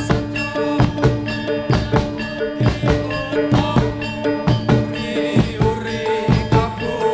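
Javanese gamelan music accompanying a kuda kepang dance: kendang drum strokes in a steady rhythm over ringing metallophone notes.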